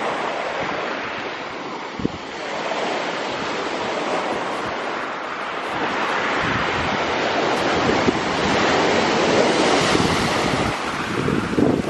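Sea surf washing in over a shingle beach, with wind buffeting the microphone; the surf grows louder in the second half. A single sharp knock about two seconds in.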